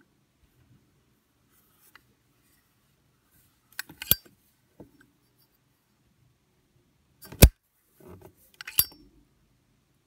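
Zippo windproof lighter's hinged metal lid clicking open and snapping shut as it is handled: a few sharp metallic clicks, a cluster about four seconds in, the loudest about seven seconds in and another near nine seconds.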